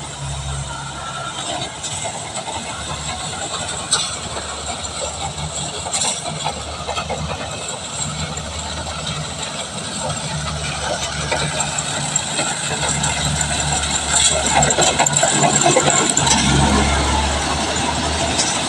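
Kubota rice combine harvester running, a steady engine drone with rattling and a couple of sharp knocks, growing louder in the second half.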